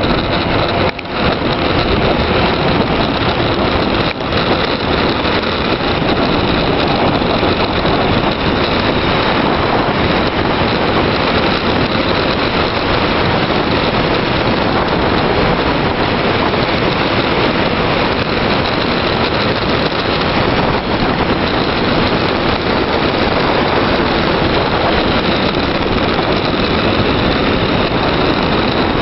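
Steady, loud wind rushing over the microphone of a camera moving fast downhill, with the road noise of rolling on asphalt beneath it. It drops out briefly about a second in and again about four seconds in.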